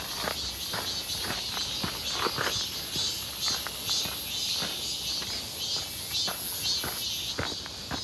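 Cicadas singing in a steady high-pitched chorus that pulses several times a second. Footsteps on a dirt and rock trail land about twice a second beneath it.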